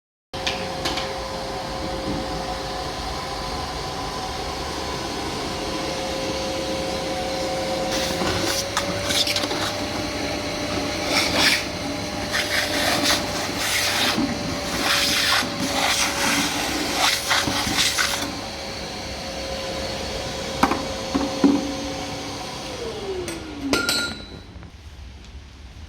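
Nilfisk Multi II wet and dry vacuum cleaner running with a steady motor whine, with a stretch of sharp clicks and clinks through the middle. Near the end it is switched off and the motor's pitch falls as it spins down.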